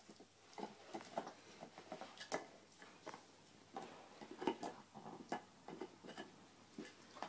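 A dog gnawing on a large antler chew: irregular hard clicks and scrapes of teeth on antler, several a second, some louder than others.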